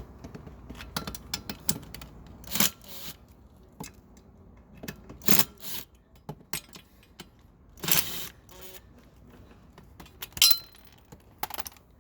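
Hand tools working on the motor-mount bolts of a kids' electric ATV: scattered metallic clicks and clinks, a few short scraping rattles, and a brief ringing clink near the end.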